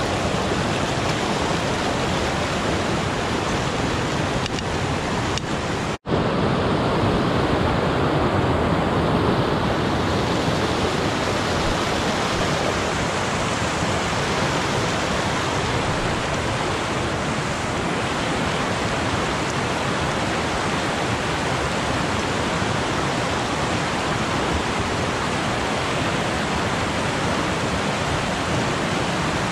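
Mountain creek rushing over rocks in small rapids: a steady, loud rush of water. The sound cuts out for an instant about six seconds in.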